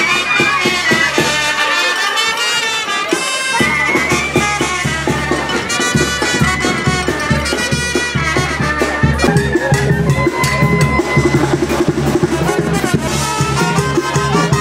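Mexican brass band (banda) music with trumpets and drums playing loudly; the bass and drum beat come in about three and a half seconds in.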